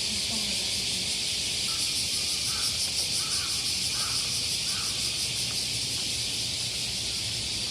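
Steady, loud chorus of summer cicadas with a fine rapid pulsing. About two seconds in, a series of five short, evenly spaced calls from a bird or animal sounds over it.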